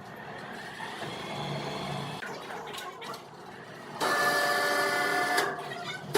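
Sawmill machinery running with a steady mechanical noise, then about four seconds in a saw cuts in with a sudden loud whine made of several steady tones.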